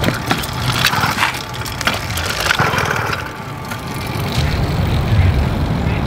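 Small gasoline engine of a motorized bicycle, being pedal-started on choke on a cold morning and running as the bike pulls away. Its carburetor has just been re-jetted.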